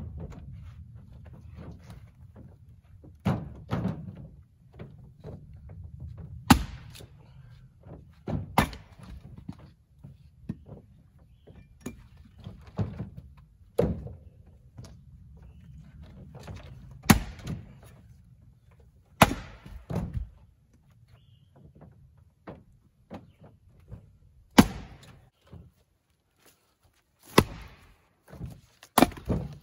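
Firewood rounds thudding into a pickup's bed and a splitting axe striking and splitting rounds of wood: about ten sharp, loud knocks a few seconds apart.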